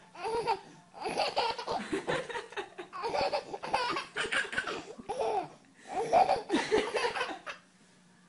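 A baby laughing in four bouts of rapid, breathy laughs with short pauses between them, falling quiet near the end.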